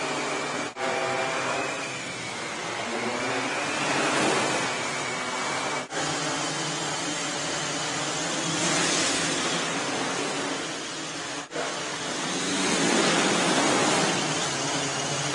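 Several small electric quadrotors flying together, their propellers making a steady whirring hiss with a high motor whine that drifts up and down in pitch as they manoeuvre. The sound drops out for an instant three times.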